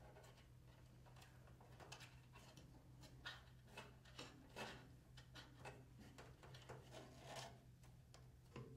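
Faint rustling and light ticks of a bungee shock cord being pulled and wrapped by hand around the spool of a Concept2 SkiErg2, over a low steady hum.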